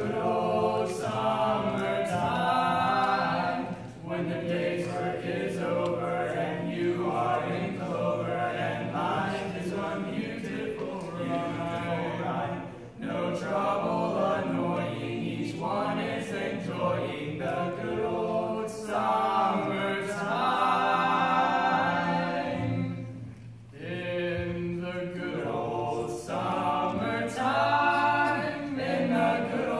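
Male barbershop quartet singing a cappella in four-part harmony: long sustained phrases with short pauses for breath between them.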